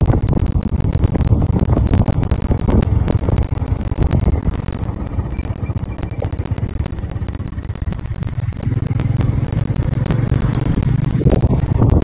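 Wind buffeting the microphone of a moving motorcycle, a heavy low rumble with frequent crackling pops, over the bike's engine running at road speed.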